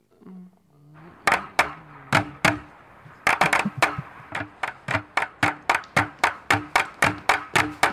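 A rhythmic percussive beat: a few sharp hits at first, then a steady run of about four hits a second with a low note held between them.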